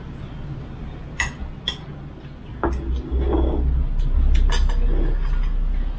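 Dishes and eating utensils clinking: a handful of short, sharp clinks spread out, with a low rumble from about halfway in.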